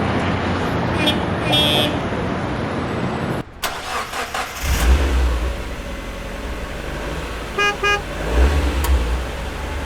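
Vehicle horns sounding short honks over steady traffic and engine noise. A low engine rumble rises after about the halfway point, and a quick double honk follows near the end.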